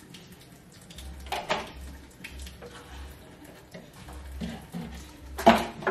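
Kitchen knife knocking on a wooden cutting board as vegetables are cut: scattered taps and knocks, the loudest a sharp clack near the end.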